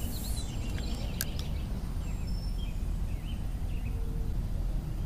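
Outdoor ambience on a calm lake: a steady low rumble with scattered short bird chirps. A quick swish of a fishing rod being cast sounds right at the start, and a sharp click comes about a second in.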